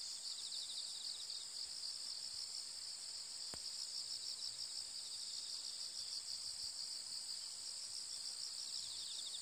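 Steady chorus of insects in the grass, a high-pitched shrill, with a faster pulsing trill near the start and again near the end. A single faint click about three and a half seconds in.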